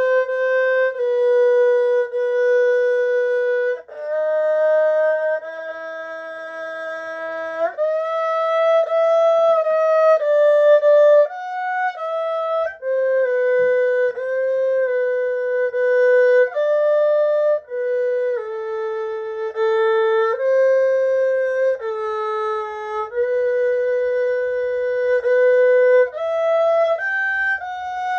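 HuQiu 5121 erhu, bowed, playing a slow melody one note at a time. The notes are held and sometimes slide up or down into the next.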